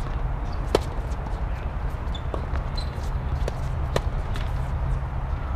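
Tennis rally: a sharp racket-on-ball strike about a second in, followed by a few more ball bounces and hits, over a steady low rumble.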